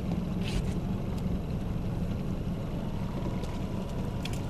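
Boat motor running steadily at trolling speed, a constant low hum under wind noise, with a few faint ticks.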